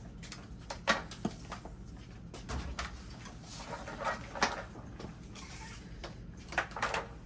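A few sharp clicks and knocks with some scraping in between, as the parts of an opened dryer are handled.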